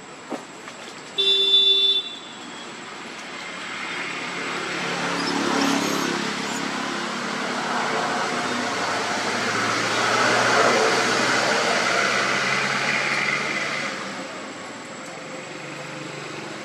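A short horn toot, then a motor vehicle passing: its engine and tyre noise swell over about ten seconds and fade.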